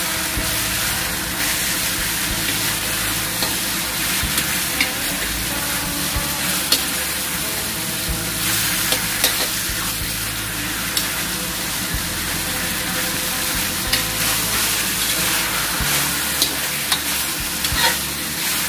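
Whole quails sizzling as they fry in hot garlic oil in a wok, being browned, with a metal spatula scraping and clicking against the pan as they are turned. The hiss is steady, with scattered clicks.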